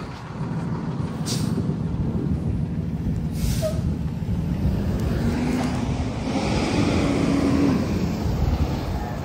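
2023 IC CE school bus driving, heard from the front seat inside the cabin: steady engine and road noise, with two short hisses of air about one and a half and three and a half seconds in.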